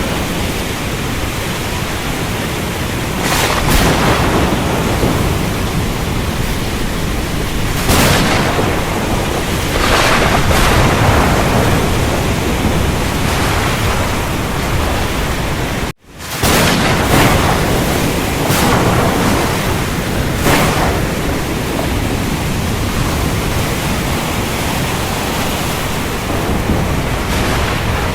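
Steady heavy rain with swells of thunder now and then. About halfway through, the sound cuts out for a split second and then comes back.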